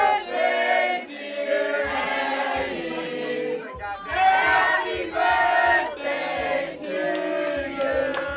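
A group of young men and women singing and chanting together in chorus, cheering on someone chugging a drink.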